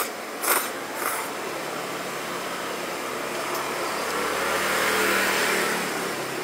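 A couple of quick slurps of noodles in the first second, then a motor vehicle passing on the street, swelling to its loudest about five seconds in and fading away.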